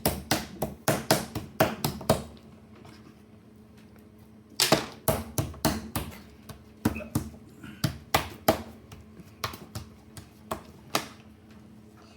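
Slime and cookie cutters being worked on a hard tabletop, making a run of sharp taps and slaps. There is a quick burst of about five a second at the start, a pause of about two seconds, then a slower run of about two a second that stops near the end.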